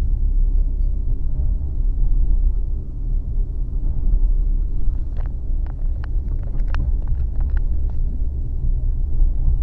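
Passenger train running, heard from inside the carriage: a steady deep rumble of wheels on the track. A run of sharp clicks and ticks comes over it for a few seconds in the middle.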